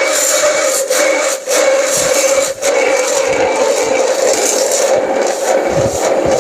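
Espresso coffee maker's steam wand hissing steadily into cold water to heat it, with an underlying hum and a few brief dips.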